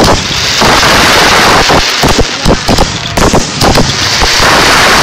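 Loud barrage of firework shells bursting in quick, overlapping succession, with stretches of dense hiss between the bangs.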